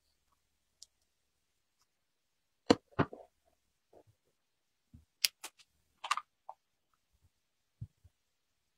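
Sparse clicks and taps of small glass nail polish bottles and their screw caps being handled: a bottle capped and set down on the table, another picked up and opened. Two loudest knocks come about three seconds in, and a quicker run of clicks follows between five and six and a half seconds.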